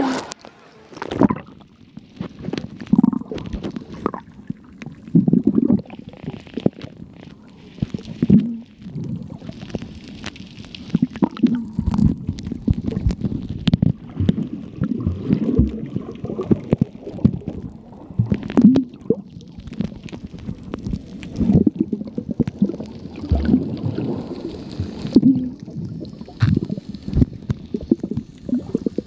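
Muffled underwater sound picked up by a submerged camera: irregular gurgling and sloshing of water, with many short knocks from the camera being moved and handled in the water.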